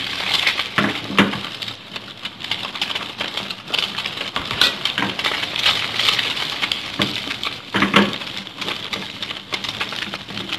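Tofu blocks frying in hot oil in a frying pan: a steady sizzle with scattered crackling pops.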